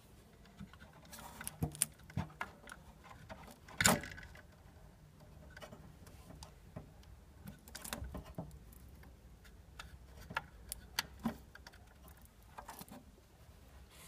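Spade connectors being pulled off and pushed onto the terminals of a refrigerator compressor's wiring block by hand: scattered small clicks and scrapes, the sharpest about four seconds in.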